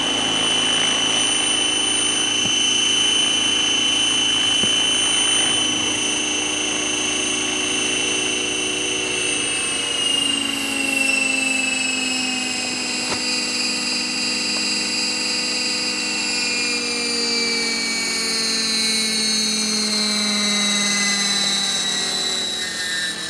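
Electric RC scale Hughes 500 helicopter with Raptor mechanics running: a steady high motor-and-gear whine over rotor noise. About halfway through the whine starts to fall steadily in pitch as the rotor slows, with the helicopter down by the ground.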